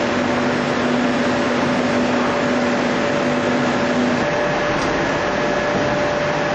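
Ring rolling machine running: a steady mechanical noise with a constant hum, and a lower hum tone that cuts out about four seconds in.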